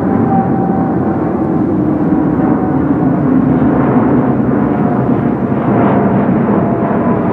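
Boeing 787-8 Dreamliner's twin Rolls-Royce Trent 1000 turbofans at climb thrust just after take-off: steady, loud jet noise with a faint whine that slowly drops in pitch as the airliner climbs past.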